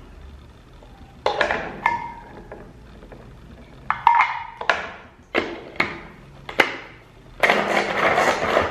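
Hard plastic parts of a Pigeon Handy Chopper clicking and clacking as the blade assembly is handled in the bowl and the lid is fitted back on: about seven separate sharp knocks. Near the end the lid's pull cord is drawn and the blades spin, giving a dense rattling whirr for just over a second.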